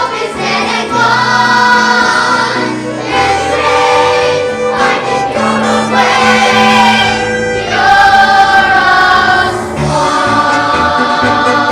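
A youth musical-theatre cast singing a show number together in chorus, over instrumental accompaniment.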